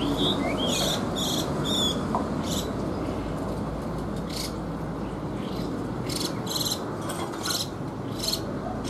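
Crickets chirping: about a dozen short, high, trilled chirps at irregular intervals over a steady background hiss. A couple of quick rising bird chirps come right at the start.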